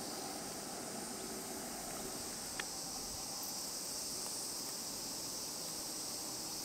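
A steady, high-pitched chorus of summer insects chirring, with one brief click about two and a half seconds in.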